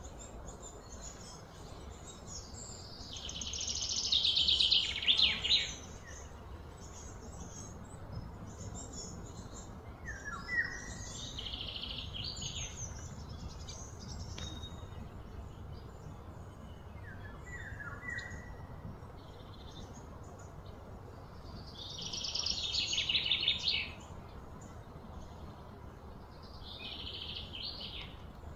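Birds calling outdoors. Two loud, rapid high trills of a few seconds each, one a few seconds in and one about three-quarters through, both swelling and then cutting off, with short chirps between them over a low steady background hum.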